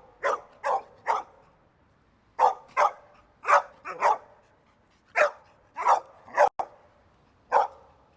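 Dog barking: about a dozen short, sharp barks in loose groups of two to four, with brief pauses between the groups.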